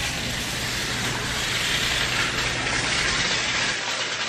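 A steady hiss of noise with no distinct events, swelling a little in the middle and easing near the end.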